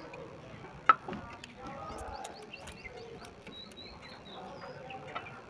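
A single sharp click of steel tools on the valve rocker gear about a second in, during a tappet clearance adjustment with screwdriver and feeler gauge. Birds chirp faintly and distant calls are heard in the background.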